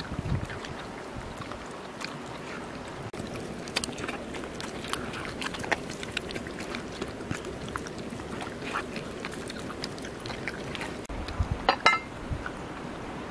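A dog eating from a bamboo trough: scattered wet chewing, smacking and lapping clicks, with a quick burst of louder clicks near the end, over a steady background hiss.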